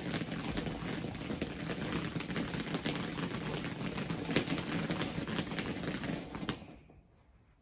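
Firework crackling and fizzing: a dense run of small pops over a steady hiss, which dies away quickly about six and a half seconds in, leaving a few faint pops.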